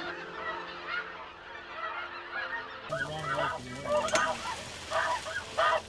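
A flock of snow geese calling: many high, overlapping honks at once. From about three seconds in the calls grow louder, with single honks standing out.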